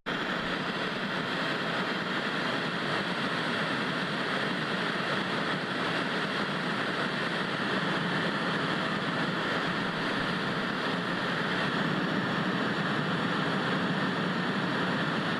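Television static: a steady, even hiss of white noise with no pitch or rhythm.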